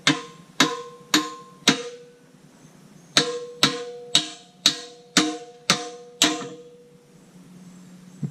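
Hammer blows driving a steel pin into a backhoe bucket's pin bore: sharp ringing metal strikes about two a second, four, then a short pause, then seven more.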